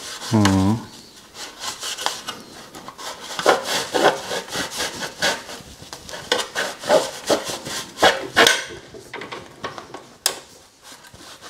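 A cloth rubbing and wiping over a motorcycle in repeated back-and-forth strokes, about two a second, which stop about nine seconds in. A single sharp click comes near the end.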